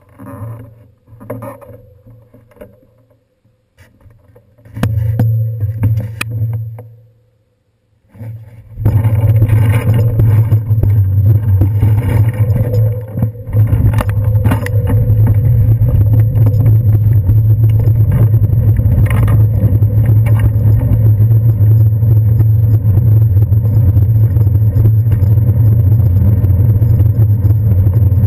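Bicycle ride heard from a handlebar-mounted GoPro: about nine seconds in, a steady loud rumble of wind and tyre noise sets in as the bike gets under way. Before that there are scattered bumps and knocks as the bike is moved off.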